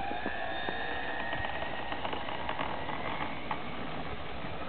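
ParkZone F4U Corsair RC plane's electric motor and propeller on its takeoff run: a whine that finishes climbing in pitch just after the start, then holds steady and fades as the plane moves away.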